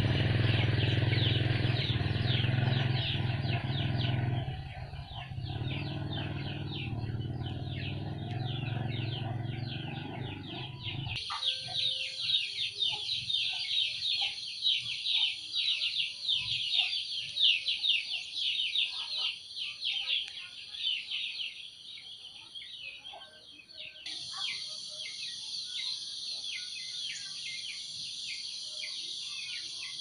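A chorus of small birds chirping rapidly and without pause, over a steady thin high-pitched tone. A low rumble under the chirping for the first third stops abruptly about eleven seconds in. The background shifts suddenly again about two-thirds of the way through.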